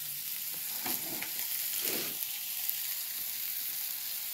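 Steady high hiss of background noise, with two faint soft sounds about one and two seconds in.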